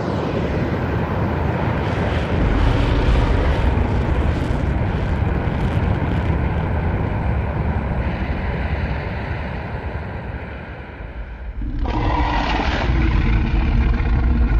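Monster-movie sound effects: a long, loud rumble heavy in the low end, like an explosion or destruction, then about twelve seconds in a sharper pitched sound with several steady tones, like a creature's roar or a jet-like whine.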